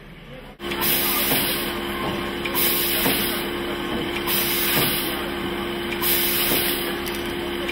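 German class 50 steam locomotive (BR 50 3673) venting steam from its running gear, a loud hiss that swells and eases about every one and a half seconds, with a steady tone beneath.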